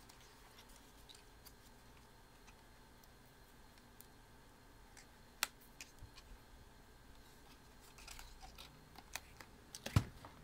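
Handling noise of a Canon PowerShot camera and its pink silicone lens cap: scattered faint clicks and rubbing, a sharp click about five and a half seconds in, then a cluster of knocks and a louder knock near the end as the cap is pulled off the lens.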